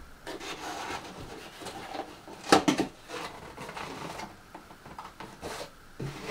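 Packaging and parts being handled during an unboxing: irregular rustling and light knocks, with one louder clatter about two and a half seconds in.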